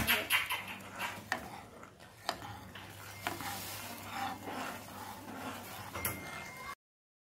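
Steel spoon stirring thick tomato soup in a metal pan, knocking and scraping against the pan about once a second. The sound cuts off suddenly near the end.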